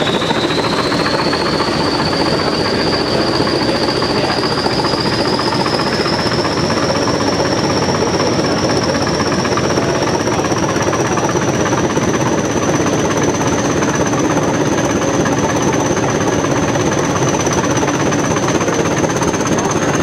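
Class 20 diesel locomotive's English Electric eight-cylinder turbocharged engine working hard with the train on the move, a steady heavy rumble over the run of the wheels. Its turbocharger whistle rises in pitch over the first several seconds and then holds high and steady.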